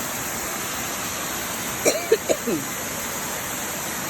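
Waterfall rushing steadily. About two seconds in come a few short voice sounds over it.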